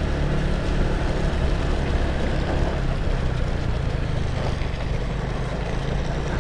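Motorcycle engine running steadily while riding, under a constant rush of wind and road noise on a helmet-mounted microphone.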